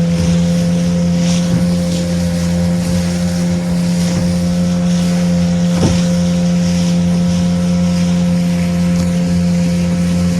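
Small motorboat's engine running at a steady cruising speed, a constant drone, with water and wind hiss over it. One brief knock a little past halfway.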